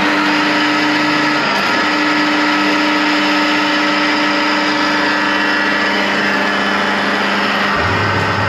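Hot-wash steam pressure washer running with a loud, steady mechanical drone; near the end its sound shifts to a lower hum.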